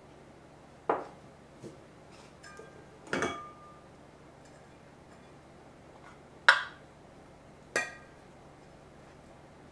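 Metal rice bowls and a rice paddle knocking against a metal hagama rice pot as rice is scooped out: about five sharp clinks, some with a short ringing, the loudest about six and a half seconds in.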